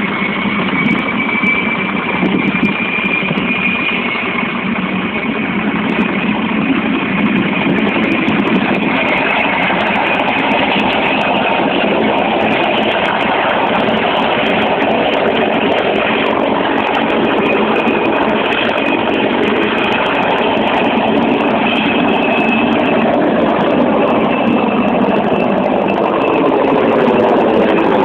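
Helicopter starting up: a steady high turbine whine, rising slightly in pitch over the first couple of seconds, over a dense engine and rotor noise that grows a little louder toward the end.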